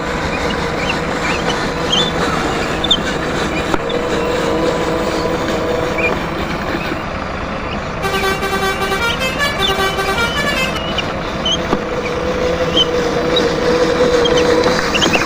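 Truck engine running steadily under a rough, noisy hiss, with a horn sounding a quick run of toots at changing pitches for about two seconds around the middle.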